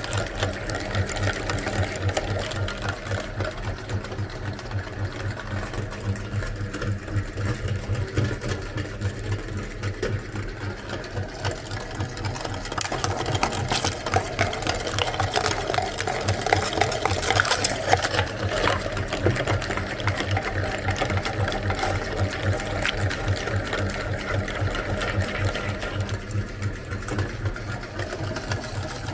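Electric meat grinder running with a steady, rapidly pulsing motor hum, with a spell of cracking and crunching as items are ground through it in the middle.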